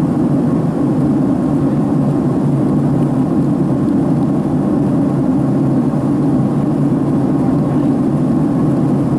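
Boeing 767-300 airliner cabin noise, heard inside the cabin over the wing during the climb: engine drone and airflow rushing past the fuselage, a loud, low, steady rumble that does not change.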